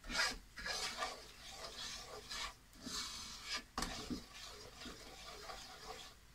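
Wooden spoon scraping in repeated strokes across a non-stick frying pan, stirring granulated sugar as it melts into caramel over a low flame.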